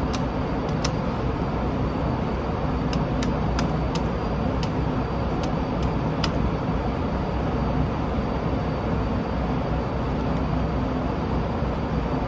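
Steady rushing roar of an indoor shooting range's ventilation system, with a dozen faint sharp clicks scattered through it.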